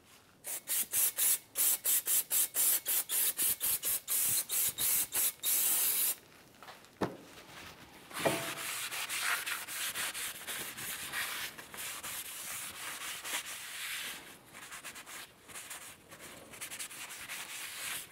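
Shop rag rubbed hard across the freshly brake-cleaned braking surface of a new steel brake rotor. About three to four quick strokes a second for the first six seconds, then slower, quieter uneven wiping.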